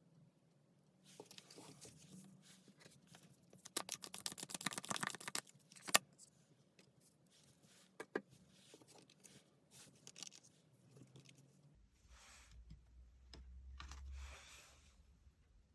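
Tarot cards being handled and shuffled: soft rustling and scraping, with a quick run of card flicks about four seconds in and a sharp snap near six seconds.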